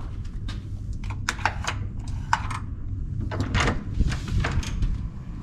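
Footsteps and short clicks and knocks, then a hotel room's keycard lock and lever handle being worked and the door pushed open, with a cluster of louder clicks about three and a half seconds in.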